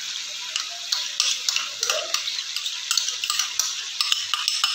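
Ginger-garlic paste being spooned from a bowl into a pan of chicken frying in oil: a steady sizzling hiss, with irregular sharp clicks and scrapes of the spoon against the bowl and the pan.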